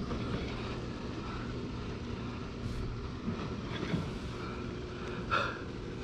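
A steady low engine drone, with a few faint short knocks and one brief louder sound about five seconds in.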